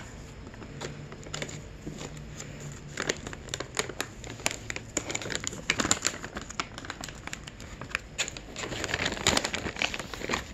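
A plastic treat pouch crinkling as it is handled over a rabbit that noses at it: irregular crackles, busiest about a third of the way in and again near the end.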